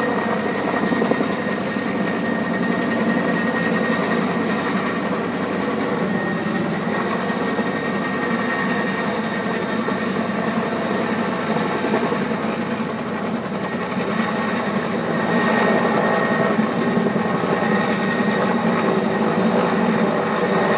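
Heavy-lift helicopter running steadily while lifting HVAC units onto a roof, its rotor and engine noise continuous with a thin steady high whine.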